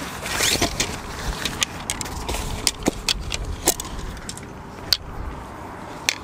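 Tent support poles clicking and clattering as they are pulled from their bag and extended, with a rustle of the bag's fabric. There are about a dozen sharp, separate clicks.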